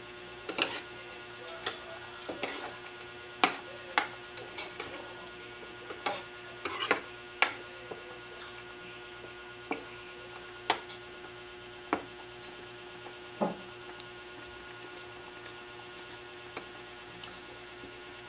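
A spatula stirring pork adobo in a stainless steel pot, knocking sharply against the pot at irregular intervals, over a low sizzle as the soy-vinegar sauce cooks down.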